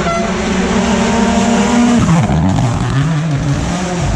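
Ford Rally1 rally car's turbocharged engine running hard at steady high revs. About two seconds in the revs drop and waver, as on a lift or gear change, then rise again near the end.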